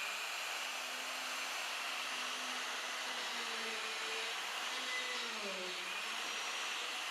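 Black & Decker electric router running steadily with a straight bit, its motor whine wavering and dipping briefly about five seconds in.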